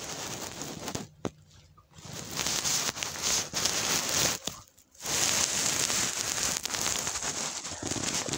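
Crackling, rustling handling noise of the phone moving against a clear plastic container, in three stretches with short breaks about a second in and again near the middle.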